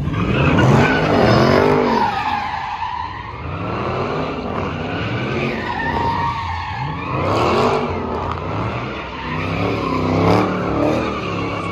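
A car doing donuts: its engine revs rise and fall over and over, and the tyres squeal and skid as they spin on the pavement.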